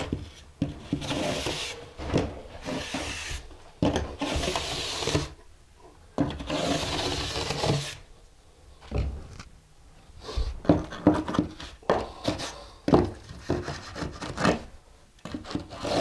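A trowel scraping and smoothing packed sand-mix mortar on a shower pan floor, shaving down high spots along the edge to level it. It makes gritty rasping strokes, longer ones in the first half and then shorter, quicker ones with small taps.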